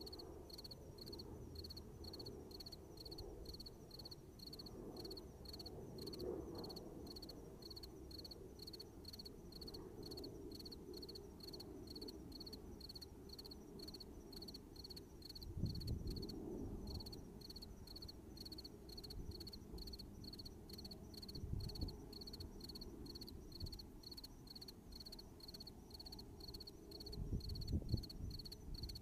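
Night insects chirping in a steady, even rhythm of about two high chirps a second over a low outdoor hum. A few dull low thuds break in around the middle and near the end.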